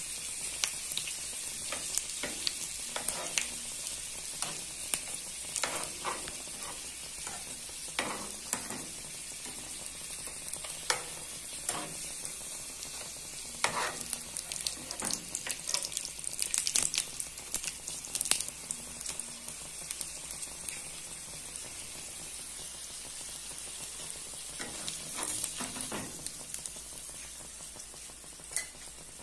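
Pastéis frying in hot oil in a metal frying pan: a steady high sizzle with frequent sharp pops and crackles. A metal spatula now and then scrapes and knocks the pan as the pastries are turned and lifted.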